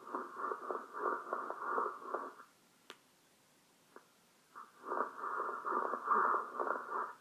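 Lung breath sounds recorded through a stethoscope: a breath lasting about two and a half seconds, a pause of about two seconds, then another breath of similar length, with a grainy, crackly texture.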